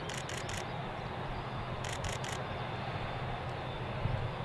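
Airbus A380 jet engines at low taxi thrust: a steady rumble and hiss that swells near the end. Twice, a quick burst of three sharp high clicks cuts through, once right at the start and again about two seconds in.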